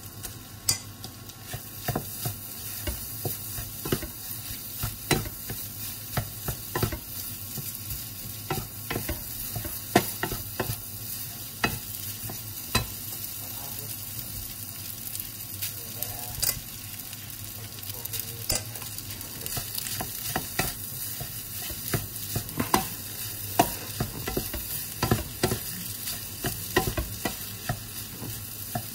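Fried rice with chicken sausage sizzling in a non-stick wok while a wooden spatula stirs and scrapes it, with a steady frying hiss and frequent irregular knocks of the spatula against the pan.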